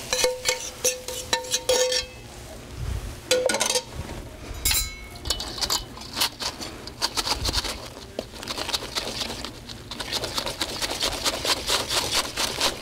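A metal spoon scraping and clinking against a copper pan, with the pan ringing on the knocks in the first two seconds. In the second half comes fast, dense scraping as the strawberry mixture is stirred in a copper bowl set on crushed ice.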